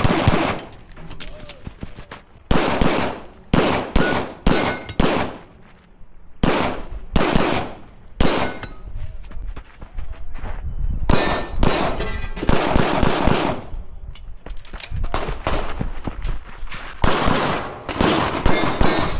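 9mm CZ Shadow 2 pistol fired in rapid strings of shots, two or three a second, with short pauses between strings, each shot echoing. A few faint ringing tones sound between some of the shots.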